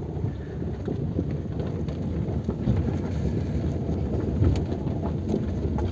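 Car driving on a rough gravel and dirt track, heard from inside the cabin: a steady low rumble of engine and tyres on stones, with a few faint clicks and rattles.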